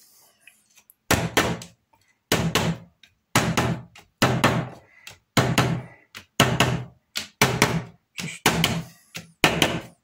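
Small hammer tapping a scrap block of wood laid over the tabs of a laser-cut wooden model truss-bridge side, knocking the tabs fully home in their slots. Quick groups of two to four sharp knocks, about one group a second, starting after a pause of about a second.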